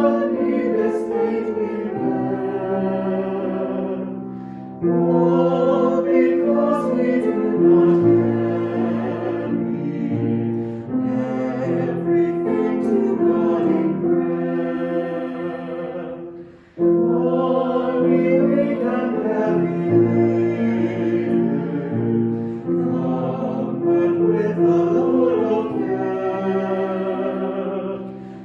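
Choral music: a choir singing held chords in long phrases, breaking off twice between phrases.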